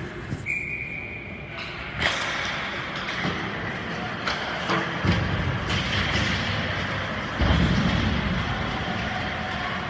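Ice hockey play in a rink: skates on the ice and sticks clicking against the puck, with a brief high steady tone about half a second in, a sharp knock about two seconds in and a heavy thud about seven and a half seconds in.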